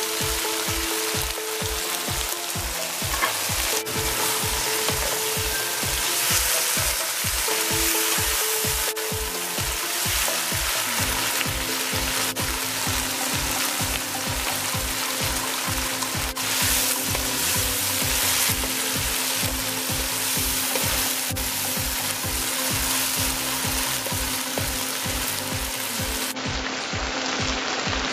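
Flaked salted mackerel with tomato and onion frying in hot oil in a nonstick wok: a steady sizzle as the liquid cooks off, with a wooden spatula stirring and scraping the pan at times.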